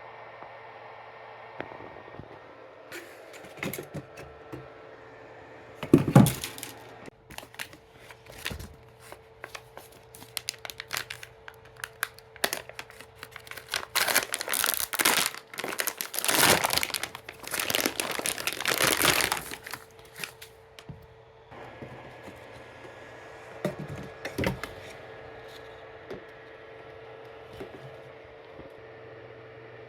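Plastic packaging being handled, crinkling and tearing, with scattered clicks and knocks and a louder burst of crinkling in the middle.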